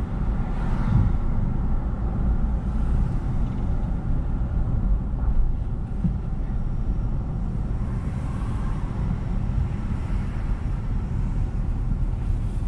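Steady low rumble of a car driving along a street: engine and tyre noise.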